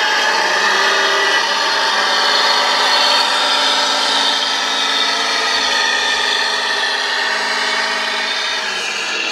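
Remote-controlled Claas Xerion model tractor driving: a steady mechanical whine from its electric drive and gearing, the pitch drifting slightly and dropping a little near the end.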